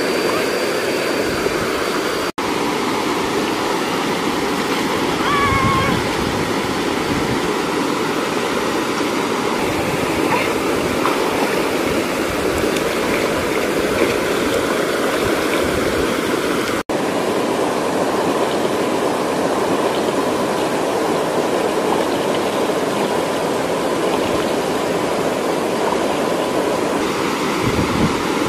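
Steady rushing water of a stream and small waterfall, cutting out for an instant twice.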